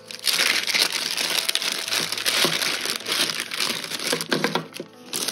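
Tissue paper crinkling and rustling as hands unwrap it from a bundle of paint tubes, easing off briefly just before the end.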